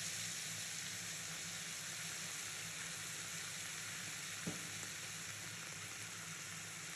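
Sliced onion, capsicum and green chillies sizzling in a hot frying pan just after soy sauce is added, stirred with a wooden spatula. One sharp knock about four and a half seconds in.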